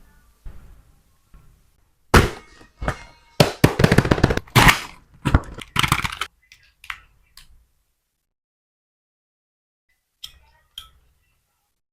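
A quick run of sharp crackles and clicks lasting about five seconds, starting about two seconds in, followed by two faint clicks near the end.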